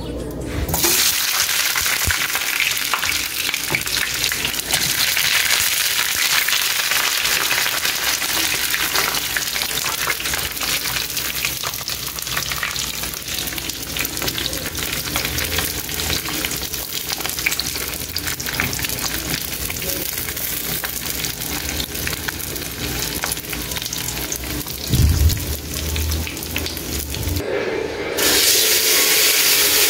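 Raw potato sticks hitting hot oil in a frying pan and sizzling steadily as they fry and are stirred with a silicone spatula, with a brief low thump a few seconds before the end. After a short break near the end, strips of pounded beef steak sizzle as they go into a hot pan.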